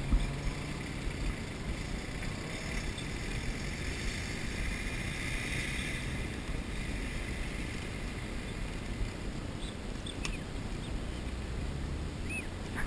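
Strong wind buffeting the microphone outdoors: a steady low rumble and hiss with no distinct events.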